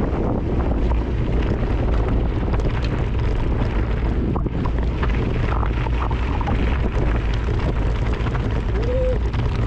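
Steady loud rumble and hiss of wind buffeting the microphone, with a brief faint whistle-like tone near the end.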